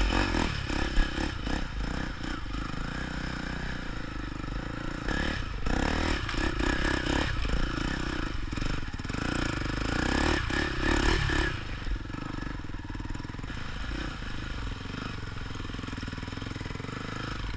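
Polaris Predator quad's engine running steadily as it is ridden over rough ground, with frequent knocks and rattles from the bumps.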